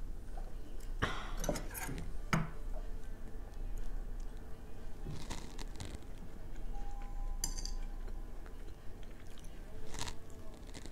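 Eating at a table: chewing and crunching of chive pancake (buchujeon), broken by a few sharp clicks and knocks of metal chopsticks and a small bowl set down on the wooden table.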